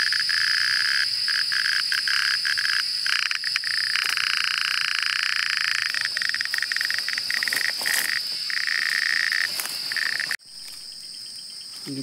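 Cicadas singing: a loud, shrill, steady drone that breaks off abruptly about ten seconds in, leaving a fainter insect buzz.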